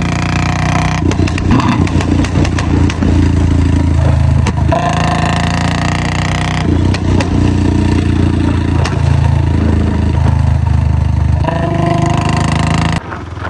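Royal Enfield Bullet 500's single-cylinder engine running loud through its exhaust under throttle, the note changing several times, then dropping quieter near the end.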